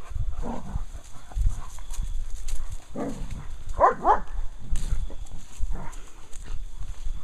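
German Shepherd dog barking a few times about three to four seconds in, over thumping footfalls and handling knocks from someone walking through fallen leaves.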